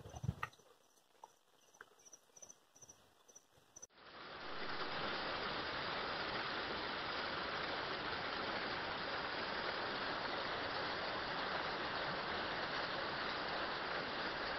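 Water from a small waterfall pouring and splashing down rock steps, a steady rushing that starts abruptly about four seconds in. Before it there is a quiet stretch with faint, evenly repeated high insect chirps and a few soft thumps.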